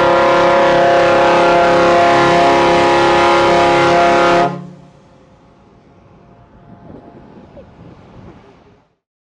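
Cruise ship's horn sounding one long, loud, steady blast that cuts off sharply about four and a half seconds in, leaving faint background noise.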